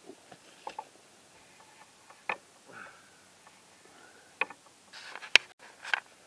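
Small campfire of thin twigs crackling, with irregular sharp snaps and clicks as sticks are laid onto the flames; the loudest snap comes about five seconds in.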